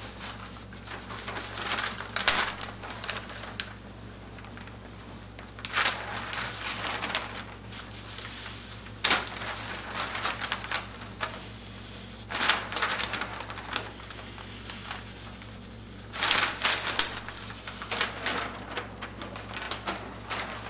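Large sheets of paper, a rice-paper painting backed with silicone film and a plain white sheet, rustling and crackling in short bursts every few seconds as they are handled and smoothed flat by hand.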